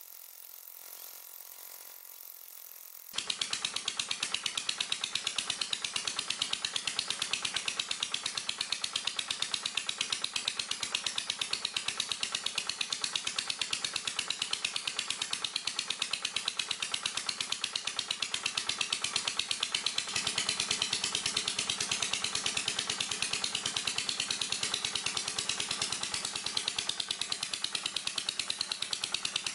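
Small diesel engine driving the water pump for jet well drilling, coming in abruptly about three seconds in and then running steadily with a rapid, even beat. Its sound grows somewhat fuller about two-thirds of the way through.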